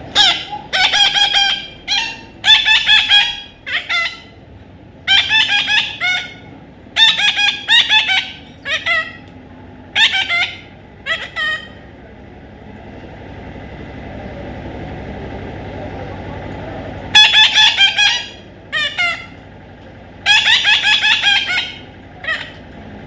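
A parrot giving loud, harsh calls in quick repeated bursts, falling quiet for about five seconds midway before calling again.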